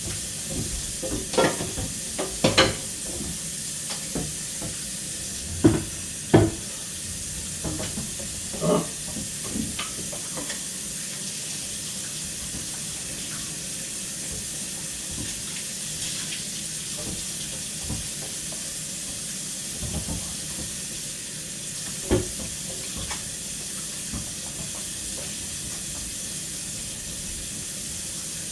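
Dishes being washed in a kitchen sink: a steady hiss of running water, with clatters and knocks of dishes and utensils, several in the first few seconds and one more later on.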